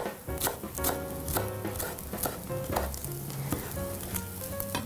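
Chef's knife chopping parsley on a wooden cutting board, about two sharp chops a second, over the sizzle of smoked chechil string cheese frying in a hot pan without oil.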